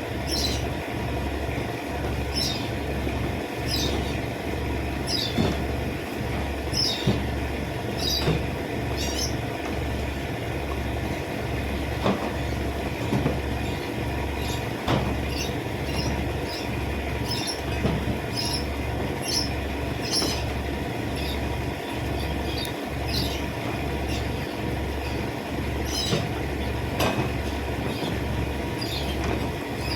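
Short high bird chirps, repeated every second or so, over a steady low machine hum that pulses about one and a half times a second.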